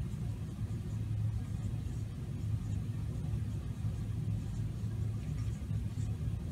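Steady low rumble of room background noise, with faint scratching of a marker writing on paper.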